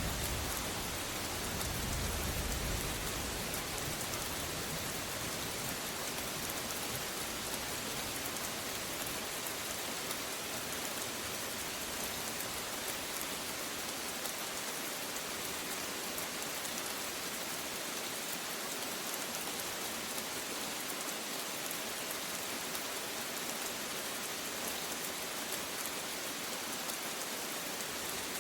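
Steady rain falling. A low rumble of thunder dies away over the first few seconds.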